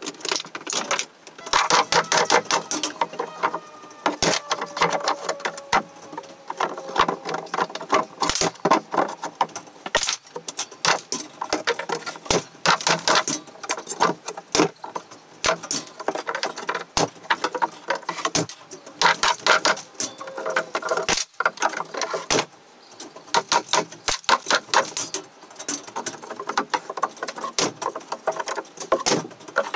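Demolition of an old wooden floor: dense, irregular clattering and knocking of wooden boards and rubble being worked loose and handled.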